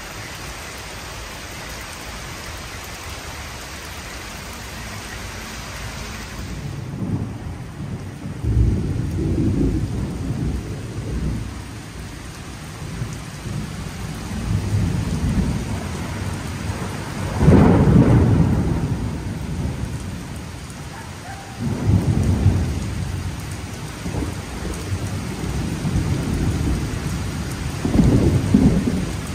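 Thunderstorm: heavy rain hissing steadily on the paving. From about seven seconds in come repeated loud, low rumbling surges of storm wind and thunder, the loudest near the middle.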